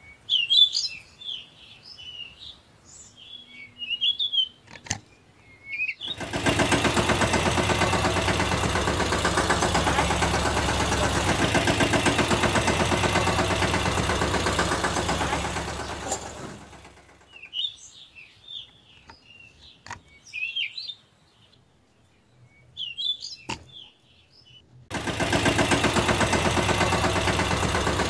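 Birds chirping, then a diesel engine running steadily with an even fast beat for about ten seconds before it cuts off; more chirping follows, and the engine starts running again near the end.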